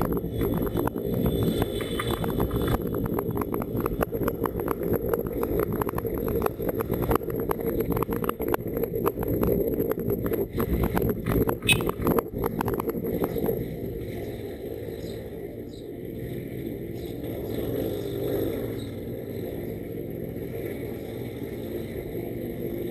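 250 cc motorcycle engine running while riding, with wind buffeting the microphone. About two-thirds through, the wind noise drops away and the sound gets quieter as the bike rolls slowly behind traffic.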